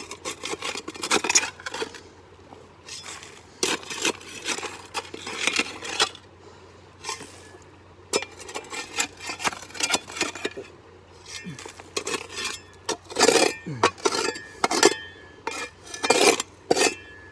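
Steel shovel scraping and digging into loose broken rock and gravel, in irregular strokes about every second or two, with stones clinking against the blade.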